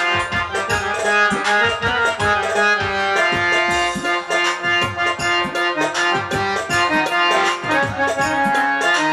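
Instrumental folk-band music: a sustained keyboard melody with held reedy notes over a fast, steady beat of hand drums.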